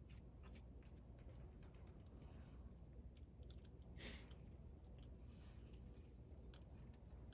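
Faint metal clicks and light scraping as a thread-insert installation tool is fitted into the insert in a cylinder-head bolt hole, with a brief scrape about four seconds in and one sharper click near the end.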